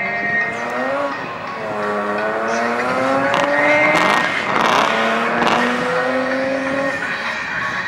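BMW E30 drift car's engine revving hard as it pulls away, its pitch climbing and dropping back several times as it shifts up through the gears, with bursts of tyre squeal about halfway through.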